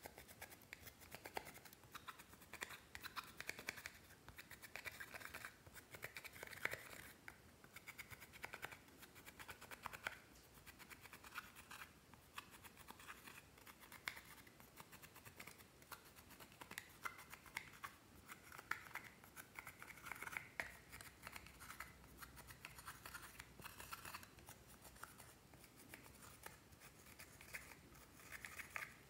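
Faint, irregular scratching of a small metal pick scraping pressed eyeshadow out of the pans of a plastic makeup palette, in bouts of quick scrapes with short pauses.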